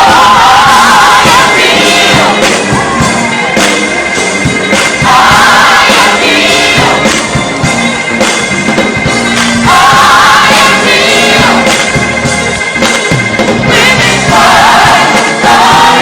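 A choir singing a gospel praise song, with loud sung phrases returning about every five seconds.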